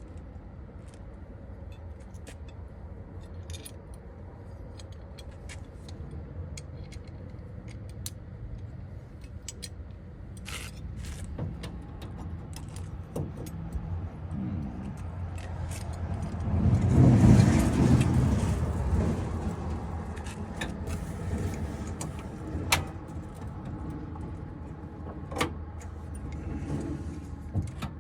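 Small metal hardware clinking and clicking as a bolt and door handle are fitted to a door panel, over a steady low hum. About halfway through, a passing vehicle swells up and fades away.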